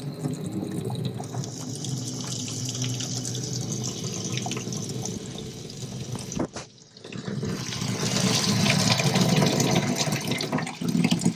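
Running water splashing, as small parts are rinsed and flushed out. It stops briefly about six and a half seconds in, then runs again louder.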